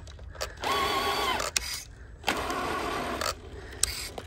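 Electric motor and gearbox of a Tamiya King Hauler RC truck whining in two throttle bursts of about a second each, winding up and back down, as it struggles for grip on slick rock. A sharp click follows each burst.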